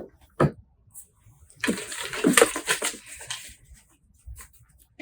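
Rustling and light clattering lasting about two seconds, with a few short clicks before and after it.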